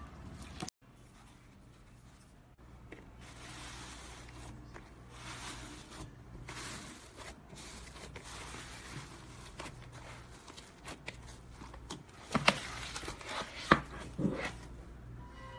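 Slime being handled and worked by hand, giving soft rustling, crackling and squelching noises, with a few sharp clicks near the end.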